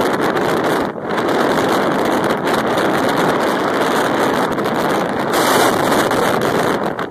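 Hurricane Irene's wind buffeting the microphone: a loud, steady rush of wind noise that dips briefly about a second in and gusts hardest about five seconds in.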